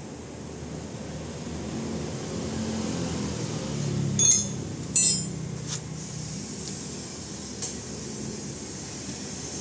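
Two bright metallic clinks with a short ring, about half a second apart near the middle, then a few fainter ticks, over a steady low hum.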